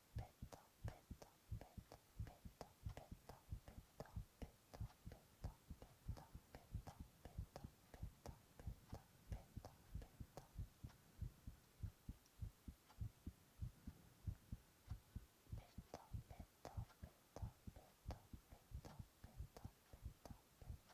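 A human heartbeat recorded close up: a steady rhythm of soft, low thumps.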